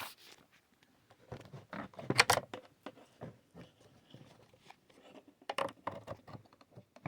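Hands handling small plastic objects and cables: scattered clicks and rustles in two clusters, one after about a second and one near the end.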